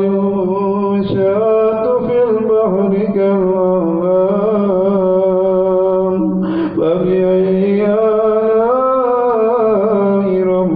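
A man's voice reciting the Quran in a slow, melodic chanting style, holding long ornamented notes, with a brief break about two-thirds of the way through.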